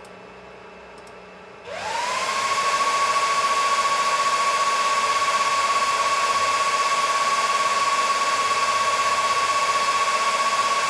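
Cooling fans of a Supermicro SYS-E300-9D server spinning up to full speed, switched over from the optimal/standard fan mode. After a moment of quiet they start with a rush of air and a whine that climbs quickly and then holds one steady pitch, much louder than before.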